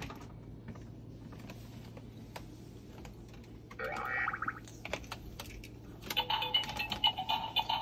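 Light irregular clicks and taps of a Moluccan cockatoo's beak on hard plastic toys, with a short pitched sound about four seconds in. About six seconds in, a beeping electronic tune starts and keeps going.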